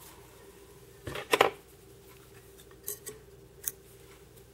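Small fly-tying scissors snipping the red tying thread at the hook: a sharp double snip a little over a second in, then two lighter clicks.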